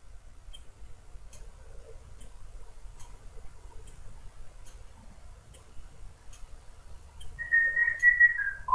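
Faint, steady ticking a little more than once a second, like a clock. Near the end comes a short, loud, high whistle, most likely from a pet parrot, that holds one pitch and dips at its close.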